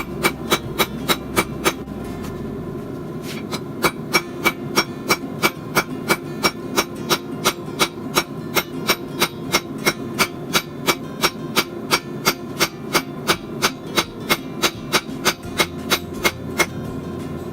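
Hand hammer striking a hot, rusted railroad spike on an anvil in a steady rhythm of about three blows a second, each blow ringing. The blows pause briefly about two seconds in, then resume, over a steady low noise.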